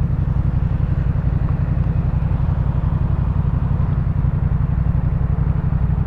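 Yamaha MT-07's 689 cc parallel-twin engine running steadily at low revs through a full Jeskap K4 aftermarket exhaust, a deep, even exhaust note with no revving.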